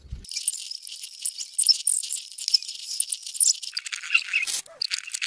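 Metal plates and small spacer rings clinking and rattling as they are slid and stacked onto threaded metal rods: a dense, thin, tinny run of small metallic clicks.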